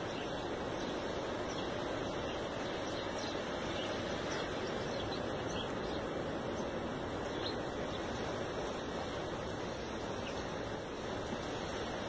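A steady rushing outdoor background noise, with faint short high chirps of small birds now and then.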